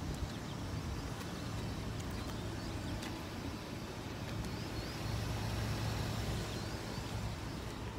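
Steady low outdoor hum with faint, short high chirps now and then.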